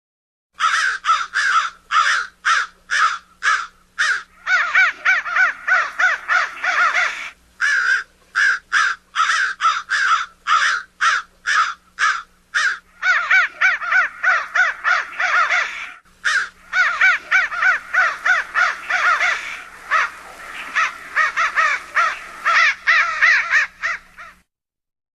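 Crows cawing over and over in quick series, with dense stretches where calls crowd together, over a faint steady hum.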